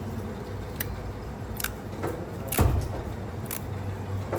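Workshop sounds: four short sharp clicks or taps about a second apart, the loudest about two and a half seconds in, over a steady low hum.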